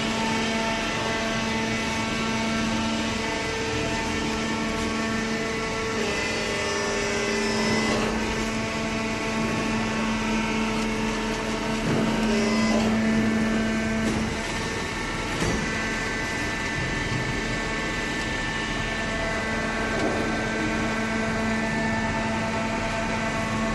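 Hydraulic cardboard baler's pump and motor running with a steady droning hum that shifts slightly in tone a few times as the ram works.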